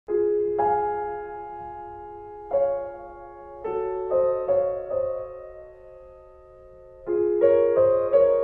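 Background music: slow, sparse piano notes and chords, each left to ring and fade, starting abruptly with a struck chord.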